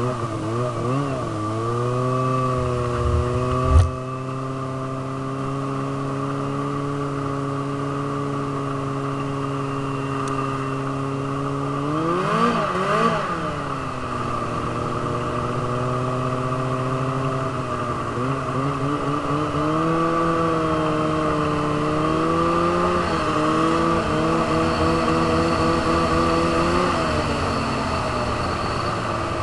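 Snowmobile engine running at steady speed for long stretches, its pitch wavering near the start, rising and falling briefly about halfway through, and changing again in the later part. A sharp thump about four seconds in is the loudest sound.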